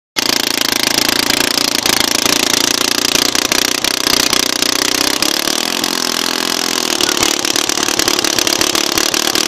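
Engine of the vehicle towing a sled, running steadily, its pitch dipping briefly about halfway through as it eases off, over a steady hiss.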